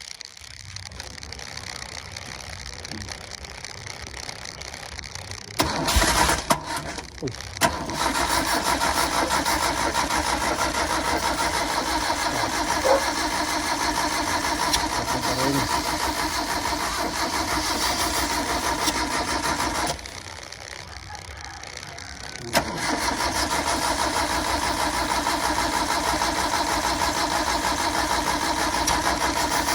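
Three-cylinder gasoline engine, just fitted with new spark plugs after a spell of hard starting, being cranked and catching about six seconds in, then running steadily. About twenty seconds in it cuts out, and a couple of seconds later it is started again and runs on.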